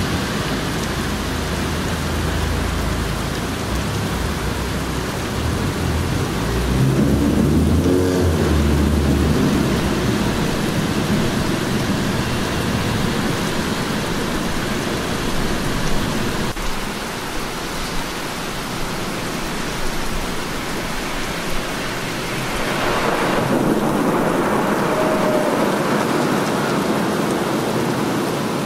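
Heavy rain falling steadily, with thunder rumbling deep for the first several seconds and loudest about seven seconds in. The rumble swells again, less deep, near the end.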